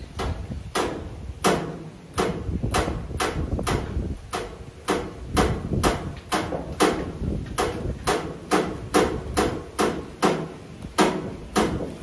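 A hammer striking metal over and over, about two to three blows a second, each with a short metallic ring.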